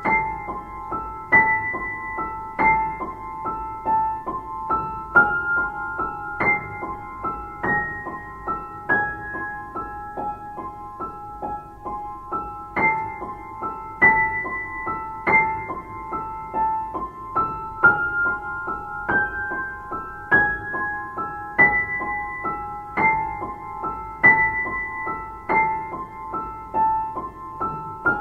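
Slow background piano music: single notes struck in a steady, unhurried pulse, forming a short repeating melody.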